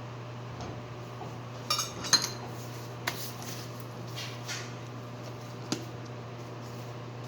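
A few sharp clinks and light knocks of crockery and metal being handled, the loudest about two seconds in, over a steady low electrical hum.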